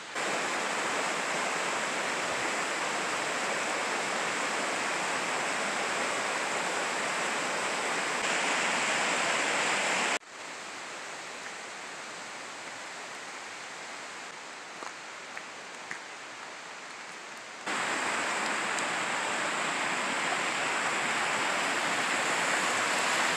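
Rushing mountain creek tumbling over rocks: a steady water noise that drops abruptly to a quieter rush about ten seconds in and comes back up loud a few seconds before the end.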